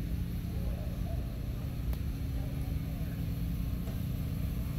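A motor runs steadily with a low hum. Faint voices of people can be heard in the background.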